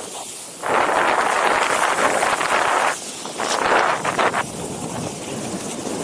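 Snowboard carving turns: a loud hiss of the board's edges scraping through snow, coming in surges, first a long one of about two seconds, then a shorter one, then quieter.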